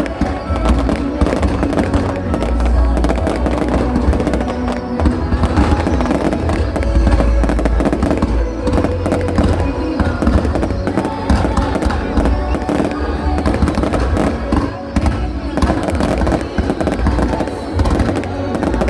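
Fireworks going off in rapid, continuous bangs, with music playing through loudspeakers.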